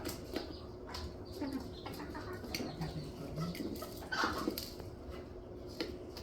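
A chicken clucking softly a few times, with one louder, higher call about four seconds in, amid many light taps and clicks.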